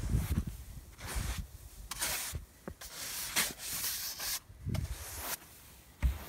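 Snow being swept off a car's windows and roof in a series of rough swishing strokes, about one a second, some with a dull thump.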